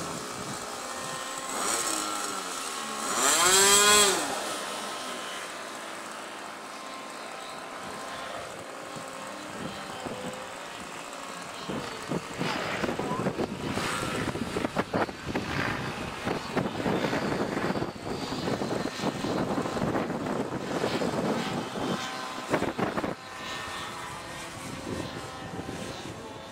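Electric motor and propeller of a 59-inch Samson II model biplane whining. About three seconds in it passes close, its pitch rising and then falling, the loudest moment; afterwards the whine is fainter as it flies aerobatics. From about twelve seconds an uneven rustling noise lies over it.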